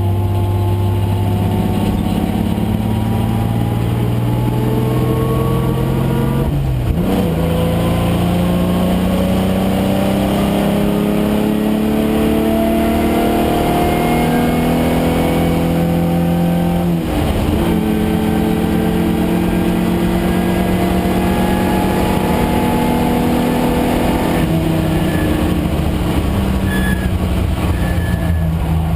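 Carbureted Nissan VG30 3.0-litre V6 in a Datsun 510 wagon race car, pulling under load with its note climbing slowly. It shifts up about seven seconds in and again around seventeen seconds, the pitch dropping at each shift before it climbs again, then holds steadier near the end.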